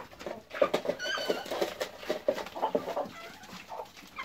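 Chickens clucking while they feed at a trough, with one short, high squawk about a second in.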